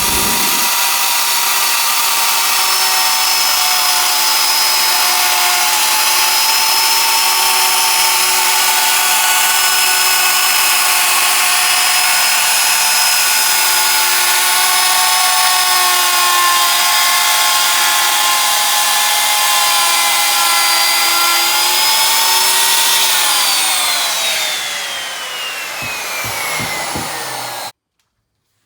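Handheld wood router running at full speed, cutting the lift-plate opening in the table top along a template, with a steady high motor whine. About 23 seconds in it is switched off and winds down with a falling whine, then cuts off near the end.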